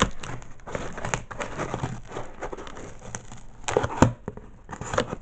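Packing tape on a cardboard box being cut and torn open: crinkling, tearing and scraping with short sharp clicks, loudest a little under four seconds in.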